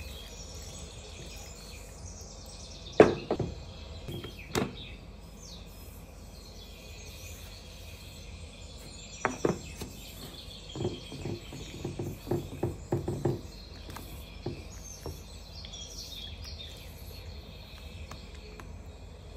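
Sharp knocks of kitchenware being set down on a wooden table, the loudest a few seconds in, then another pair of knocks and a run of light taps. Faint bird chirping runs steadily in the background.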